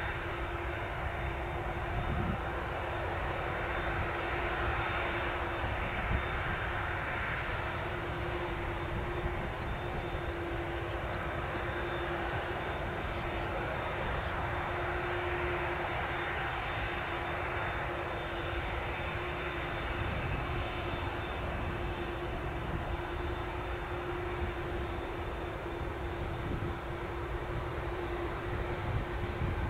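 Airbus A380's four Engine Alliance GP7200 turbofans running at low power as the airliner taxis and lines up on the runway. A steady jet hiss with one held droning tone underneath and a low rumble, getting a little louder near the end.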